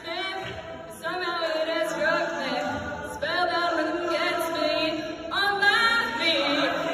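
Choir of mixed voices singing, holding chords that change every two seconds or so.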